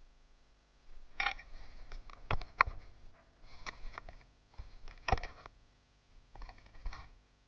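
Hands working on small parts: clusters of sharp clicks and short rustling, scraping handling noises in four bursts, the loudest click about two and a half seconds in.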